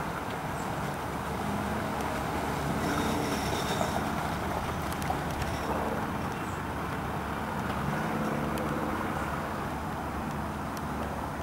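Land Rover Defender's engine running steadily as the vehicle drives off-road, with a few light clicks and knocks.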